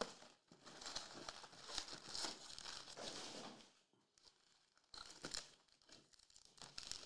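Foil-wrapped trading-card packs crinkling and rustling as they are slid out of a cardboard box and handled, with short crisp tearing sounds near the end as a pack wrapper is torn open.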